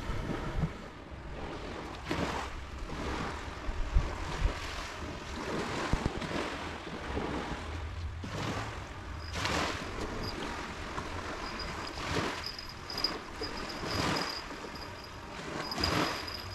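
Small sea waves washing onto a sandy, stony beach, swelling and fading every couple of seconds, with wind buffeting the microphone and a few low knocks.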